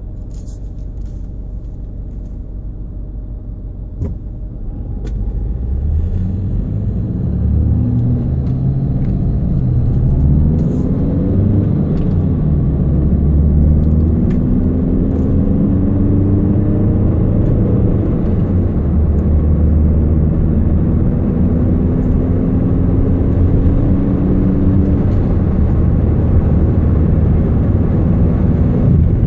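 Volkswagen Jetta TDI turbodiesel heard from inside while driving: a steady low road rumble, then the car pulls away and accelerates, its pitch climbing and dropping back at each gear change. The car has a constant rumbling, wobbling noise on the road that the owner is trying to diagnose.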